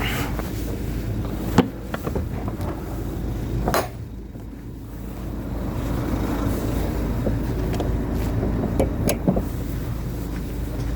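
A motor vehicle's engine running steadily, with a few sharp knocks or clicks over it, one of them about a second and a half in.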